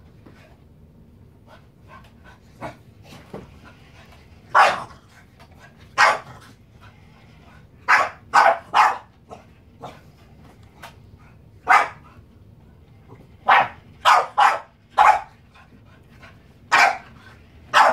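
Small dog barking at a remote-control toy car: about a dozen short, sharp barks at uneven intervals, with a few quieter ones in the first few seconds.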